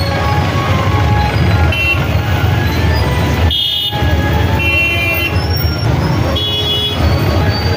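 Vehicle engines running in a slow-moving street procession of jeeps and motorcycles, with short high horn toots, three of them in the second half.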